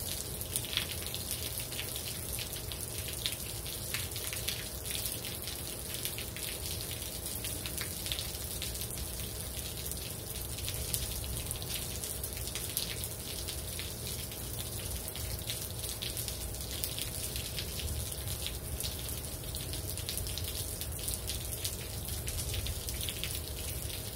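Steady rain falling, with many close, sharp drips of water running off a patio roof edge.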